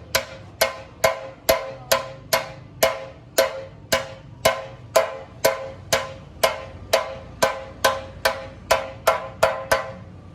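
A hammer striking metal at a steady pace, a little over two blows a second, each blow ringing briefly. The blows stop near the end.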